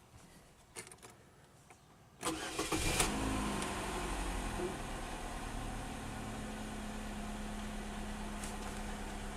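2004 Chevrolet Malibu Classic's 2.2-litre Ecotec four-cylinder engine cranking briefly and catching about two seconds in, flaring up for a moment and then settling to a steady idle: its first start after an oil change.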